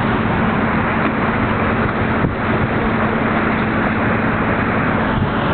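A boat's engine running steadily under way: a constant low hum under a loud, even rush of noise.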